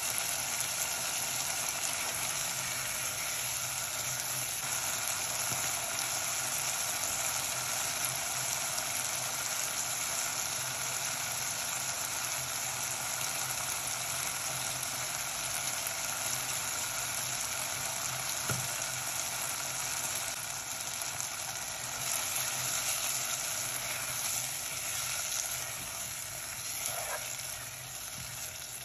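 Mutton pieces frying in oil and masala in a pot: a steady sizzle with fine crackling, a little softer near the end.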